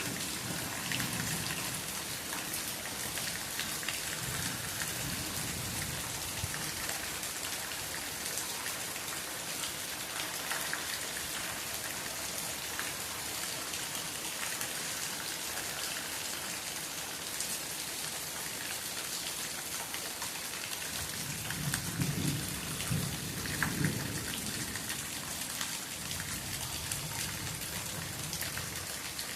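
Steady rain falling, a dense hiss of drops with scattered sharper drop ticks. A low rumble swells about three-quarters of the way through and fades again.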